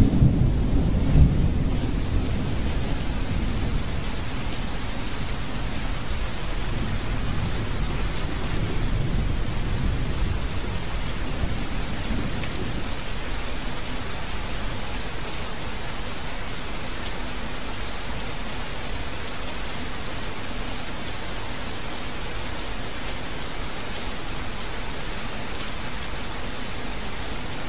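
Steady rushing-water noise, with a low rumble in the first dozen seconds that dies away.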